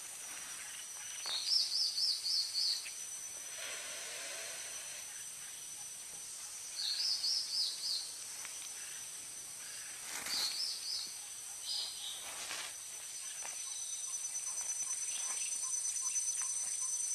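Natural ambience of insects and birds. A steady high insect buzz runs throughout and swells near the end with a fast pulsing trill. A bird calls short runs of about five quick high notes, three times.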